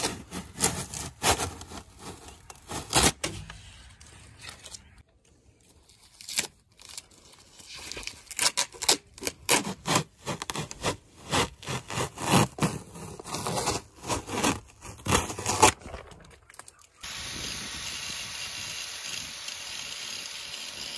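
Paper and blue painter's tape being peeled and torn off a fiberglass hull patch: irregular crinkling and ripping, with a short pause about five seconds in. About seventeen seconds in, a steady hiss takes over.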